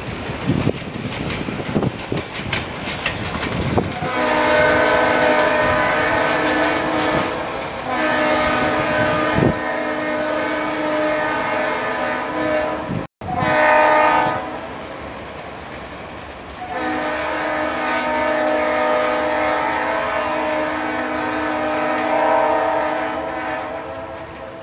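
Locomotive air horn sounding two long blasts, a short one and a final long one, the pattern blown for a road crossing, over the rumble of the moving train. For the first few seconds before the horn, the train's wheels click and rumble over the rails.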